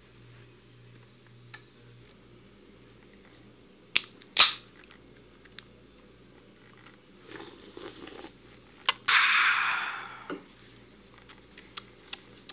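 Knocks and hits in a scuffle: two sharp, loud hits about half a second apart, a stretch of rustling and scraping, then a knock and a loud rushing crash that fades over about a second, with a few light clicks near the end.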